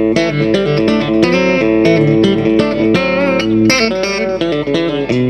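Fender Stratocaster electric guitar played in country chicken-pickin style: a quick run of snappy picked notes over ringing lower notes, with a wavering bent note about three seconds in.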